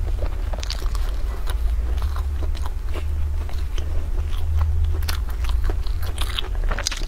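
A person chewing a mouthful of soft sponge cake, with many short wet mouth clicks and smacks over a steady low hum.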